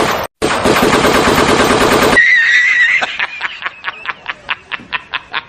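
Recorded AK-47 automatic fire played loud, rapid continuous shots for about two seconds with a brief dropout just after the start. It cuts off abruptly into a short high wavering tone, then a run of sharp cracks about five a second.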